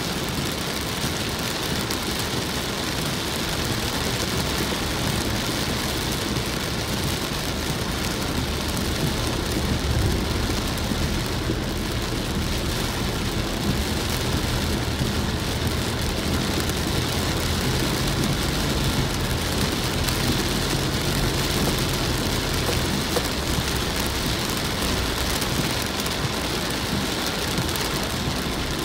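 Heavy rain pelting a car's windshield and roof, heard from inside the cabin as a steady dense patter, over the low hum of the moving car.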